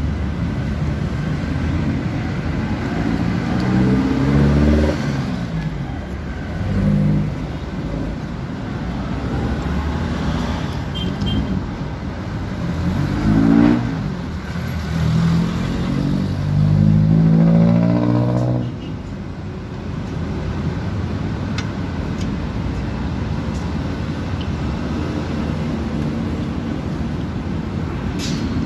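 Motor vehicle engines revving past several times, each rising in pitch, over a steady bed of traffic noise; the revving stops a little past the middle, leaving only the traffic noise.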